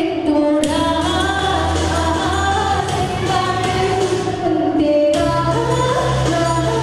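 A woman singing a Tamil pop song live into a handheld microphone over backing music, her voice gliding between held notes above a steady bass line that shifts to new notes about half a second in and again near five seconds.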